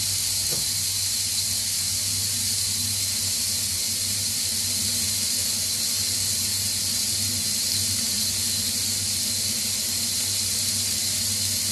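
Olive-oiled broccoli florets sizzling in a heavy grill pan over high heat: a steady high hiss.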